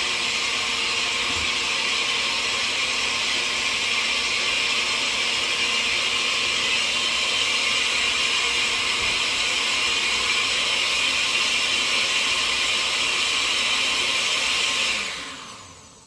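Countertop blender running steadily, blending a liquid oat, banana, egg and milk pancake batter; it is switched off near the end and winds down.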